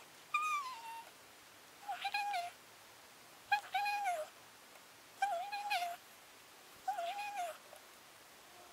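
A cat meowing: five drawn-out meows, about one every second and a half.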